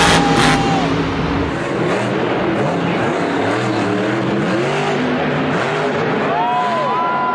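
Monster truck supercharged V8 engines running loud, revving up and down again and again. The engine note changes abruptly about a second and a half in, where one arena clip gives way to another.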